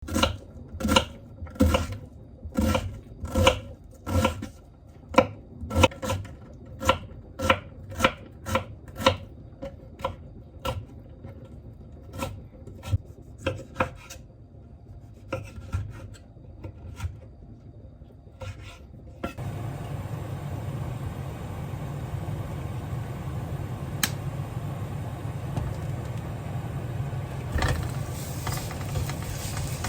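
Kitchen prep: a run of short scraping strokes, one or two a second, like a utensil or knife working against a board or bowl. After about twenty seconds the strokes stop and a steady hiss with a low hum takes over.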